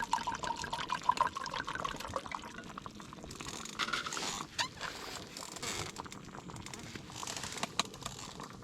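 Liquid trickling and bubbling in a cooking pot, with many small crackles and ticks.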